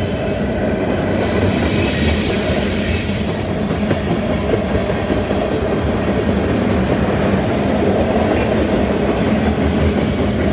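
CSX freight train rolling past, its wheels running steadily over the rails.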